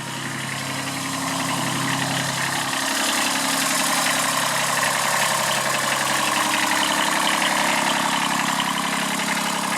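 Kubota B7001 tractor's three-cylinder diesel engine running steadily, getting louder over the first few seconds and then holding level.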